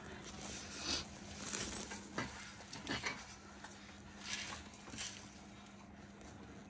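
Faint, irregular rubs and scrapes, about half a dozen short ones, as a BC coilover is worked by a gloved hand into line with the front steering knuckle of the Honda Accord. A steady low hum runs underneath.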